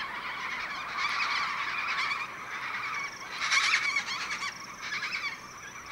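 A large mixed flock of Major Mitchell's and sulphur-crested cockatoos calling together, a dense, very loud chorus of screeches that swells and eases in waves.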